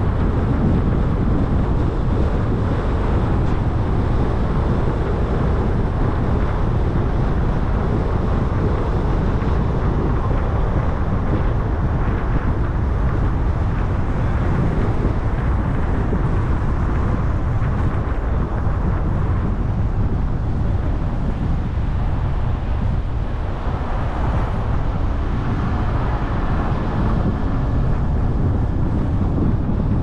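Car driving along, a steady low rumble of road and wind noise.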